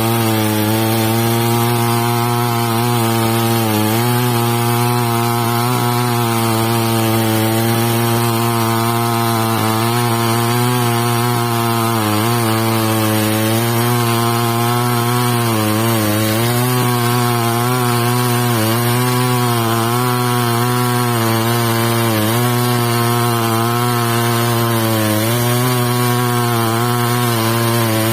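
Two-stroke chainsaw in a chainsaw mill running at full throttle, ripping a log lengthwise into boards. The engine note is steady and loud, dipping slightly in pitch every few seconds as the chain bogs under load.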